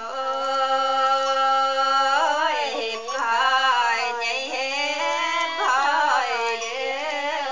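Woman singing a highland ethnic folk song, holding long notes that slide and waver in pitch.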